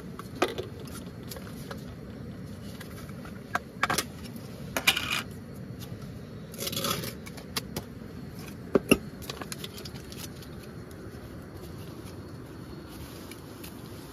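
Tableware being handled at a camping table: scattered light clicks and scrapes of a small spoon, tubs and cups, with a short crinkly rustle near the middle as a foil lid is peeled off a dessert tub. A steady low rumble runs underneath.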